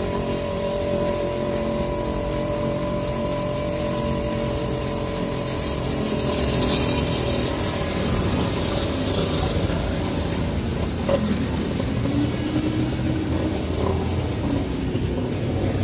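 Steady running noise of the motorbike the camera rides on, its engine and the rush of air and road, with a few held tones and no marked change in speed.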